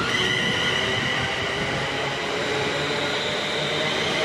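Class 350 Desiro electric multiple unit passing close by at speed: a steady rush of wheels on rail with a steady high whine over it.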